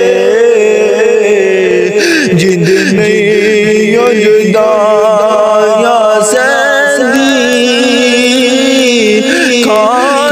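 Male voice singing a Punjabi Sufi kalam in long held notes that bend, slide and waver.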